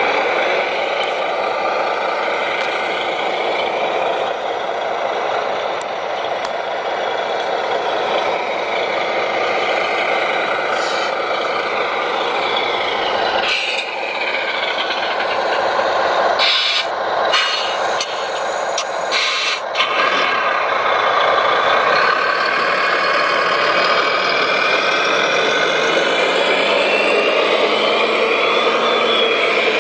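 Radio-controlled construction machines running, a mix of motor and gear whine with shifting pitch. Knocks and rattles come in a cluster about halfway through, and a low whine rises steadily near the end.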